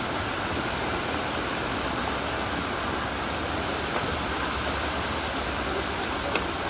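Battered chicken pieces deep-frying in a large steel tray fryer of hot oil: a steady, dense sizzle and bubbling. Two sharp clicks, about four and six seconds in, as the metal utensil stirring the chicken knocks against the fryer.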